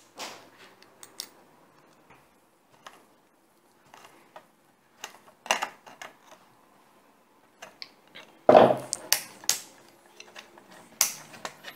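Scattered small clicks and clinks of pliers and plastic parts being handled while a switch is fastened to a cordless vacuum cleaner's plastic housing with a small nut and washer. A few louder knocks and rattles come about eight and a half seconds in and again near the end.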